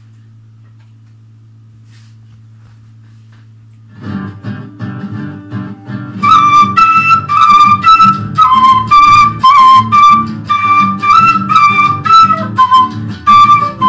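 A low steady hum, then a guitar accompaniment starts about four seconds in. About two seconds later a PVC quena, an Andean notched flute, comes in with a melody of short, repeated notes.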